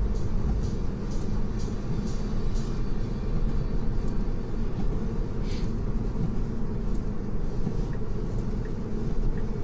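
Steady, deep road and tyre noise heard inside the cabin of a 2020 Tesla Model 3, an electric car, driving on wet roads in the rain, with faint brief hissing streaks now and then.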